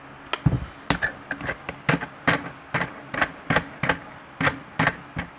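A rapid series of sharp clicks and taps, roughly three a second, from a metal padlock being handled.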